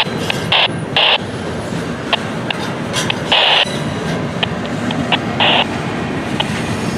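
Freight train of mostly empty cars rolling past with a steady rumble, broken by several short, harsh bursts of noise.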